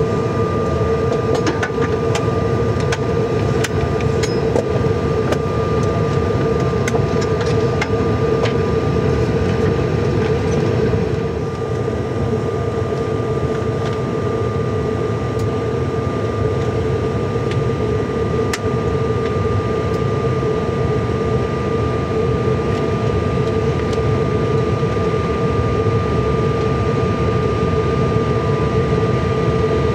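Steady air-conditioning hum in the cabin of a Bombardier CRJ700 regional jet parked with its engines not yet started, with a thin steady whine over it and a few faint clicks.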